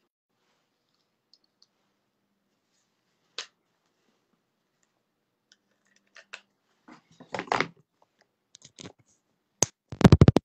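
Handling noise on the recording device's microphone: a few faint clicks, a louder rubbing scrape at about seven and a half seconds, then a sharp tap and a quick run of loud knocks near the end.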